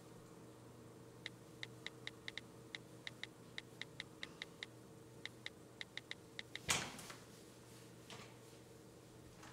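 Smartphone keyboard clicks: about twenty short, crisp taps at an uneven typing rhythm. They are followed, about two-thirds of the way through, by one louder brief noise.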